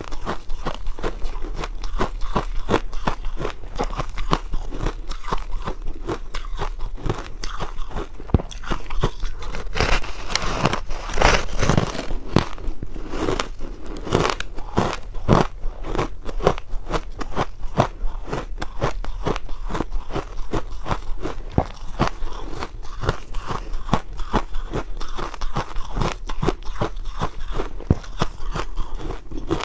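A pink, crumb-coated block of ice being bitten and chewed close to the microphone: dense, rapid crunching and crackling of ice, a little louder about ten to twelve seconds in.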